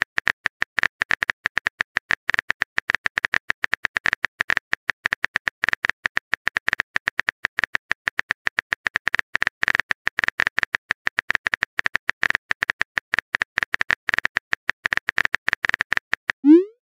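Keyboard-typing sound effect of a text-message chat: a rapid, uneven stream of short sharp clicks, many a second.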